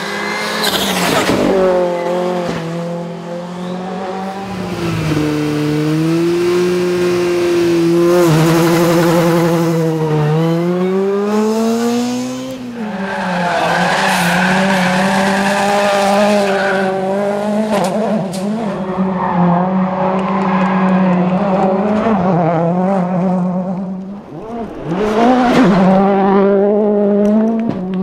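World Rally Cars' turbocharged four-cylinder engines revving up and down through gear changes on a rally stage, the pitch climbing and dropping repeatedly, with a few sharp cracks.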